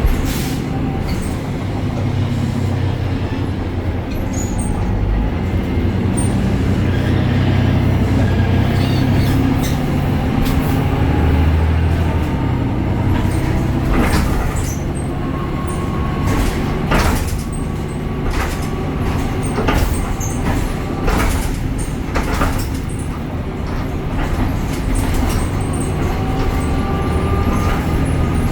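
BredaMenarini Avancity Plus city bus on the move: its Deutz diesel engine and ZF gearbox run steadily with a shifting engine note. From about halfway through come repeated knocks and rattles, along with a thin whine.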